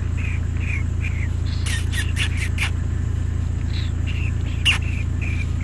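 Vehicle engine idling with a steady low rumble. Over it, a run of short high chirps repeats every half second or so, with a quick cluster of squeaky, falling calls about two seconds in and one sharper call near the end.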